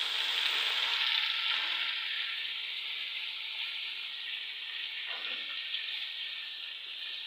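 Chicken curry with its spices frying in hot oil in a pot, a steady sizzle that starts loud and eases off a little.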